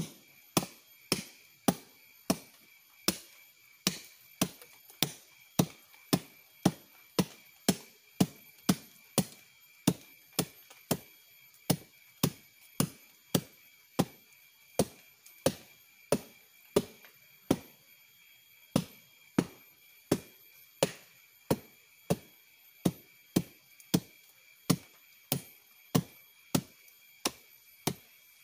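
Sugar palm (aren) flower stalk being beaten in a steady rhythm, sharp knocks about two a second with a short pause partway through: the beating done to bring on the flow of sap before the stalk is tapped.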